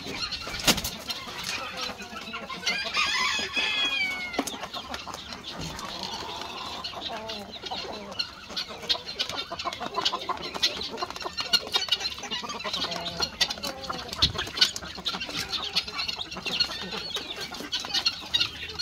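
A flock of chickens clucking while they feed, with many short clicks, and one longer call that slides downward about three seconds in.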